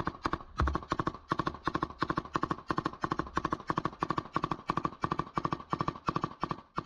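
Belt-fed machine gun fired in quick short bursts, a few rounds each with brief pauses between. The firing stops just before the end.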